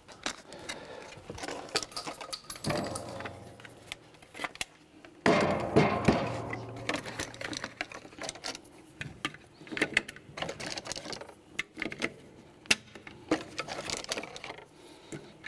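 12-gauge 00 buckshot shells being pressed one at a time into a Mossberg 590M double-stack box magazine: a run of irregular clicks and plastic snaps, with the handling noise of shells drawn from their box.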